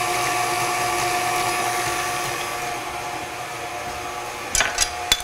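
Electric mixer whipping heavy cream with powdered sugar and vanilla into a stiff whipped-cream frosting, a steady whir. A few sharp knocks come near the end.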